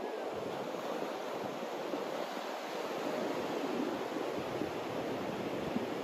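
Ocean surf breaking offshore and washing up a flat sandy beach: a steady rush of whitewater with no single crash standing out.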